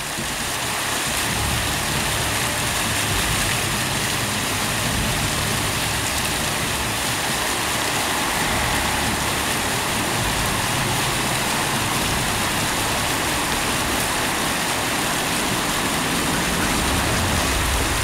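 Floor fountain's many small water jets splashing onto paving: a steady hiss of falling water with a low rumble underneath.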